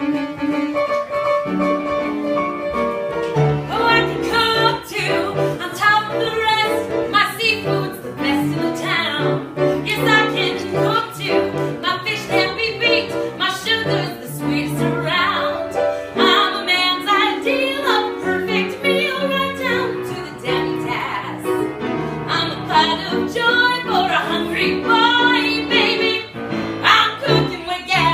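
A woman singing a show tune solo over piano accompaniment. The piano plays alone at first, and the voice comes in about three and a half seconds in.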